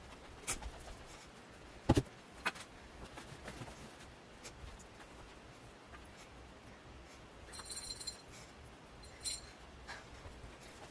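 Soft scattered thumps, taps and rustles of pillows and bedding being handled while a bed is made, the loudest thump about two seconds in. A brief high jingle comes about eight seconds in.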